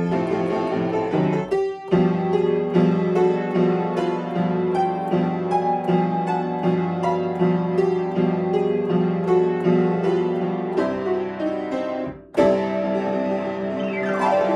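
Upright piano playing a cheerful arrangement from a medley of animal songs: a melody over a steady, repeating bass pattern. The playing breaks off briefly about two seconds in and again about twelve seconds in, and a quick falling glide is heard near the end.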